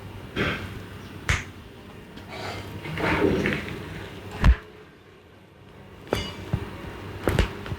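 A massage by hand on the head and back: several separate sharp slaps and taps. The loudest is a heavy thump about four and a half seconds in.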